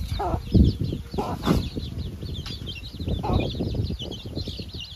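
Young chicks peeping in a rapid, continuous stream of short high chirps, while a hen clucks low three times.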